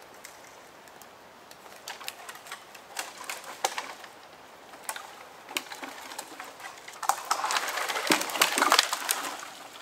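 A leaning dead tree trunk being pushed over by hand: dry wood cracks and twigs snap in scattered sharp clicks. About seven seconds in, it turns into a louder, dense crackle and snapping of branches as the trunk comes down.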